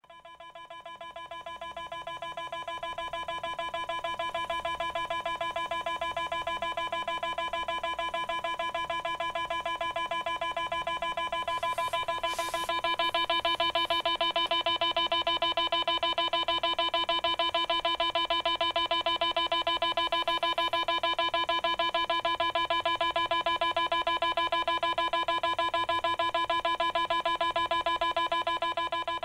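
Weather alert radio sounding its alert tone: a steady, rapidly pulsing buzzy tone that swells in over the first few seconds and steps louder about halfway through. It signals a weather alert ahead of the broadcast.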